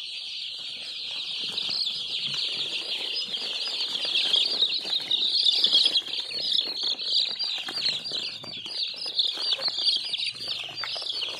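A flock of three-day-old chicks peeping all together, a dense unbroken chorus of high chirps that is loudest around the middle.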